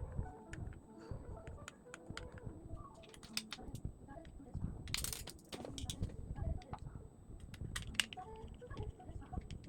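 Irregular light clicks and taps of small parts being handled, with low knocking underneath.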